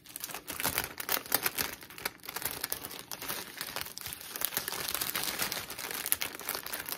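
Thin clear plastic bags crinkling and rustling in the hands as they are handled, a continuous crackle of many small ticks.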